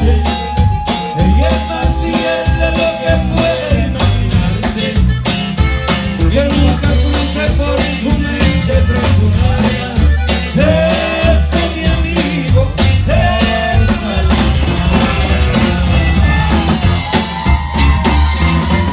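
Live conjunto tejano band playing, with a drum kit keeping a steady beat under bass, guitar and singing.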